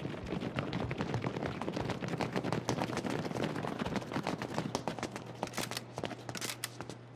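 Sustained gunfire from several automatic weapons: rapid overlapping shots, densest in the first five seconds, then thinning to scattered, sharper shots near the end.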